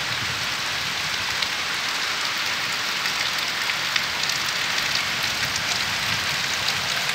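Heavy rain falling steadily on trees and open ground, with small drops ticking close by.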